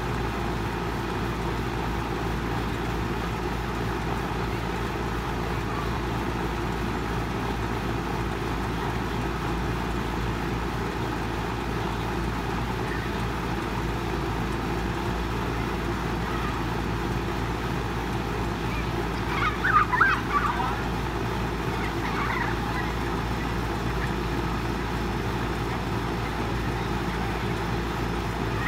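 A steady outdoor hiss with a low hum runs throughout. About twenty seconds in there is a brief burst of distant children's shouts and squeals, with a fainter one shortly after.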